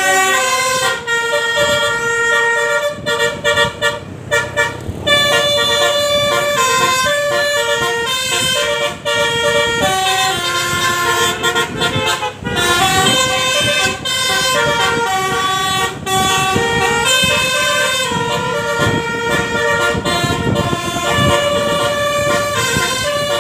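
Bus telolet basuri horn playing a melody: several air-horn trumpets sounding held notes together, stepping from note to note, with a run of short choppy notes a few seconds in. A low rumble sits underneath.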